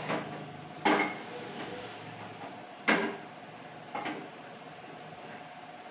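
Metal cookware knocking on a tabletop cooktop: three sharp clanks with a brief ring, two seconds apart and then one second apart, over a faint steady hum.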